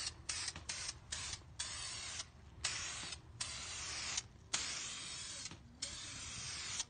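Aerosol spray can of clear coat hissing in repeated sprays over a wheel: short quick bursts for the first couple of seconds, then longer passes of about a second each.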